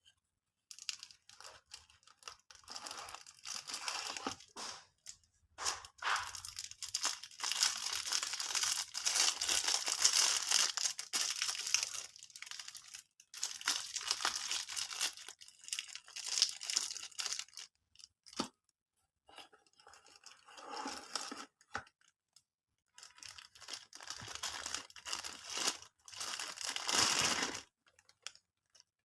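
Packaging being torn open and crinkled by hand while unboxing, in stretches of tearing and rustling broken by short pauses.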